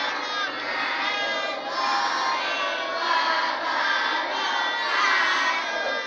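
A crowd of children's voices chanting and shouting together, a steady massed din of many voices.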